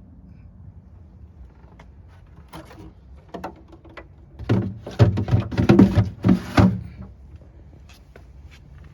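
Handling noise: a few scattered clicks, then a burst of knocks and rattles lasting about two seconds, over a low steady hum.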